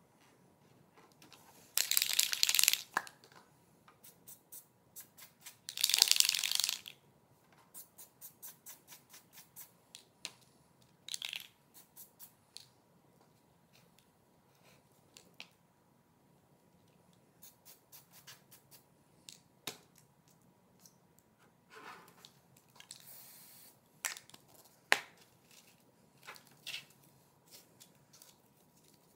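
Painter's tape being peeled off a clear plastic RC truck body shell, with two long ripping pulls about two and six seconds in, more pulls later, and many small crinkles and ticks of the tape and stiff plastic between.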